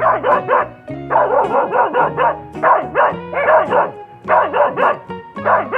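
A dog barking over and over in quick succession, about two to three barks a second, over background music.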